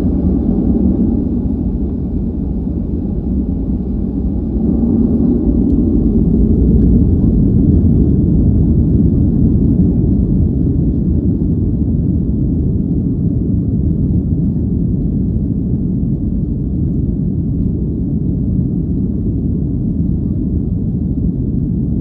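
Inside the cabin of a Boeing 737-700 on its takeoff roll: the CFM56-7B engines at takeoff thrust and the wheels rumbling on the runway. The loud, low rumble grows about five seconds in, then holds steady.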